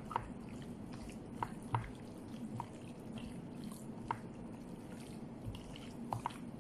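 Hands mixing meat pieces in a wet marinade in a metal tray: a run of short, irregular wet squelches and smacks, over a steady low hum.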